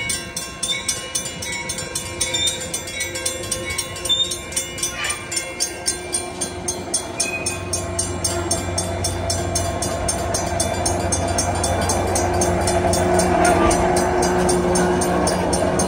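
Railroad crossing signal bell ringing in rapid, even strokes as the activated crossing signals run. From about halfway, a train's low engine drone builds and grows louder, partly covering the bell.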